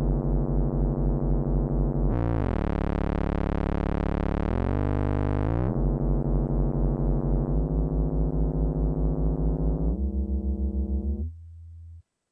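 SSF Vortices modular mixer self-oscillating in a stereo feedback patch: a buzzy drone with a fast pulsing wobble. Its pitch and tone shift as the feedback knob is turned. It glides into a brighter, smoother sound about two seconds in and glides back about three and a half seconds later. It steps down lower and quieter near the end, then cuts off suddenly.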